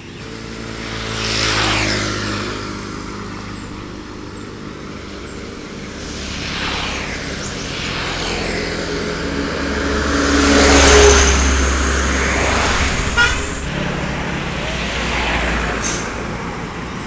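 Road traffic: a few motor vehicles pass one after another, each engine and tyre noise swelling and fading, the loudest about eleven seconds in. A brief sharp clatter comes about two seconds after it.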